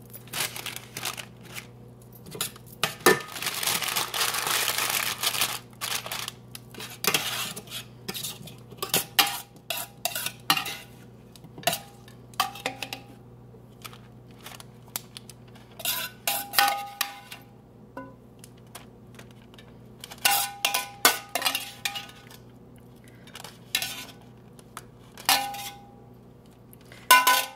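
Metal kitchen tongs clicking and clinking against a plate as salad is served onto it: scattered sharp clinks, some ringing briefly, with a few seconds of rustling about three seconds in.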